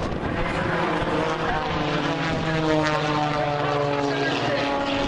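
Propeller-driven aerobatic planes flying overhead with a steady engine drone.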